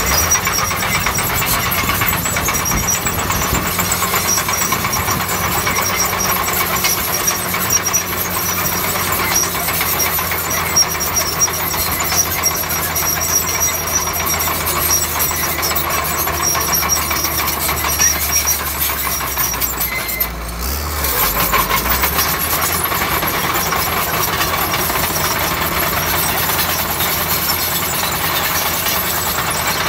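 Bulldozer's heavy diesel engine running steadily with a constant metallic clatter over it. The engine note dips and shifts briefly about two-thirds of the way through, then carries on.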